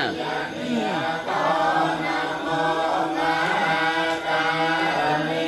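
Buddhist monks chanting Pali verses together, several male voices in a continuous recitation with held notes and slow pitch glides.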